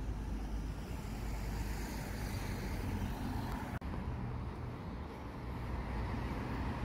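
Steady outdoor traffic noise, a low even rumble of road vehicles, with a brief break about four seconds in.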